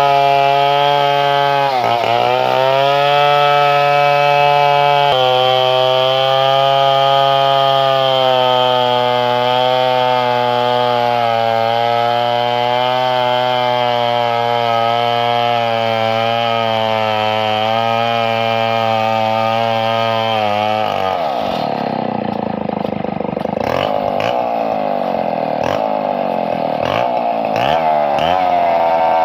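Two-stroke chainsaw running at high, steady speed, dipping briefly about two seconds in. About twenty seconds in, its engine note drops and wavers up and down.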